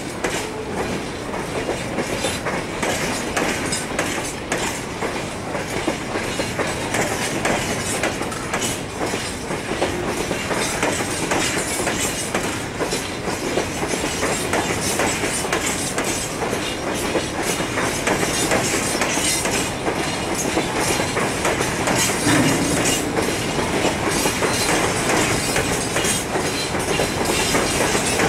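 Freight train wagons rolling past, their wheels clicking and clacking steadily over the rail joints.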